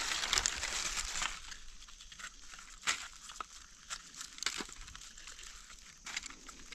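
Dry fallen leaves rustling and crinkling as gloved hands and a small knife dig out and clean a wild amanita mushroom, busiest in the first second, then thinning to scattered small clicks and crackles.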